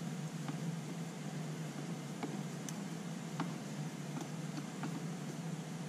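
Faint scattered clicks of a hand screwdriver turning acid-proof screws into a plastic scooter mud guard, over a steady low hum.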